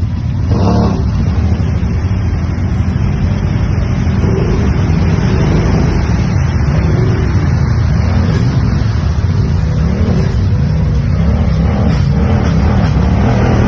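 ATV engine running hard, its pitch rising and falling repeatedly as the throttle is worked.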